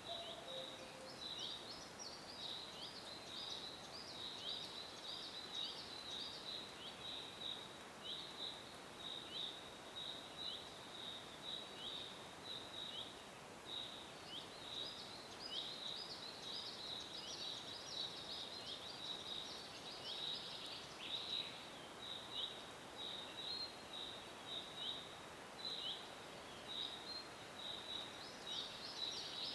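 Forest ambience: birds chirping continuously in short, high, downward-sliding notes, about two a second, with busier spells, over a steady background hiss.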